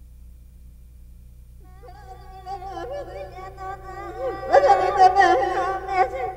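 A low steady hum, then music fading in about two seconds in. Its several wavering, sliding melody lines grow louder toward the end.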